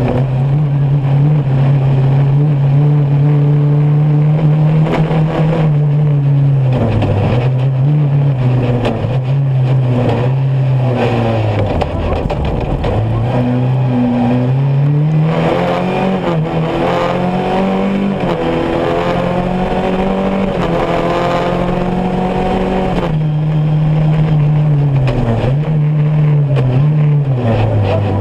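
Off-road rally buggy's engine, heard from inside the cockpit, running hard at high revs. The pitch drops briefly several times as it lifts off and slows, with a deep drop about twelve seconds in, then climbs back up in steps as it accelerates through the gears.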